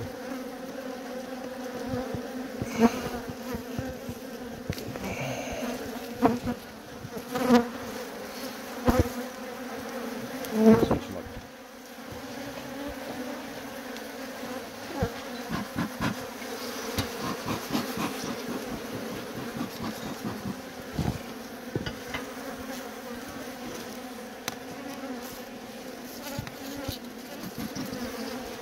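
Honey bee colony buzzing in a steady massed hum as the nest is opened up and smoked. A handful of sharp knocks against the wood come over it in the first ten seconds or so, followed by lighter scattered clicks.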